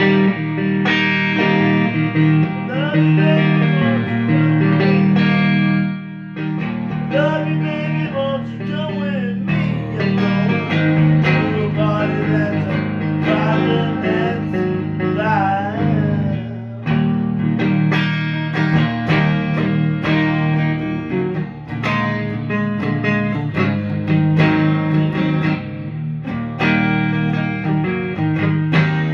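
Fender Stratocaster electric guitar played through Fender DeVille and Blues Junior amps: single-note lead lines with string bends and vibrato over sustained low chords.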